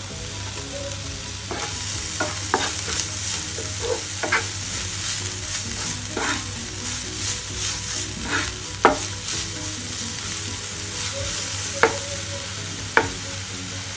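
Chopped ginger, garlic and green chillies sizzling in a little hot oil in a non-stick frying pan as they are sautéed on a medium flame. A wooden spatula stirs them, scraping and tapping against the pan now and then, with a few sharper taps in the second half.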